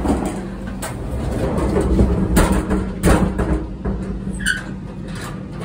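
Steady low hum inside a stationary air-conditioned train coach, with a few sharp knocks and clatters of a door being handled and a brief squeak near the end.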